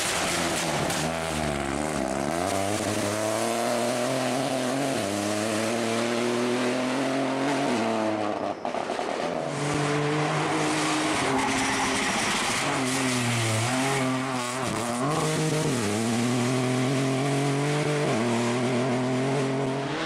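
Rally car engine at full throttle, revs climbing and dropping back at each gear change through a run of quick upshifts. There is a brief break about halfway, then another hard run up through the gears.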